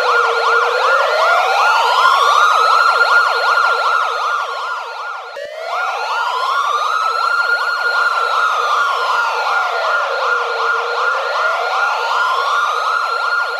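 Police siren sounding a slow wail that rises and falls over about four and a half seconds, with a fast yelp warbling several times a second on top of it. It breaks off briefly about five seconds in and starts again.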